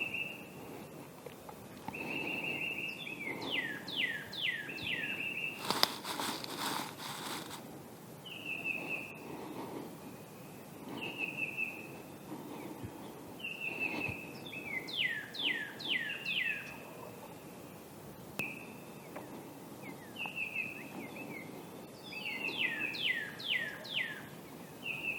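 A songbird singing outdoors: a held whistle followed by a run of four or five quick falling notes, repeated three times, with single short whistles in between. A brief rushing noise comes about six seconds in.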